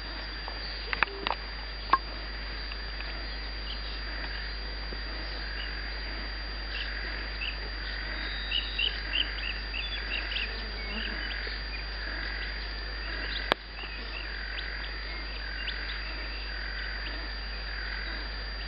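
Outdoor evening animal chorus: a steady pulsing chirring that repeats about once a second, with birds chirping over it in the middle. A few sharp clicks sound near the start and once more about two-thirds through.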